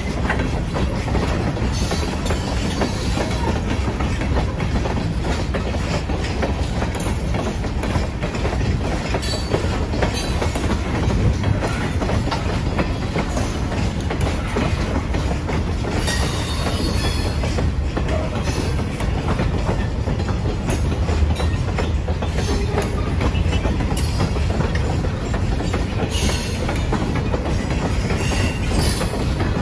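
Freight train of steel gondola cars rolling past: a steady rumble of wheels on rail with clickety-clack over the rail joints, and brief high-pitched wheel squeals a few times.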